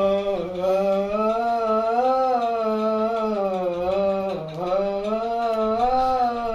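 A man singing a tune without words in one long, smoothly wavering line, with a short break about four and a half seconds in.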